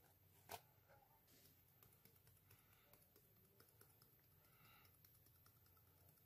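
Near silence with faint, scattered small clicks and ticks as glitter is shaken from a small plastic bottle onto slime; one sharper click about half a second in.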